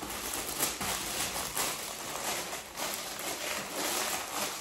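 Plastic packet of holographic glitter crinkling and rustling in the hands, a steady run of small crackles as it is handled.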